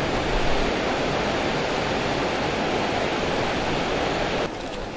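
Water rushing steadily over a low river weir, a dense even roar that drops away suddenly near the end.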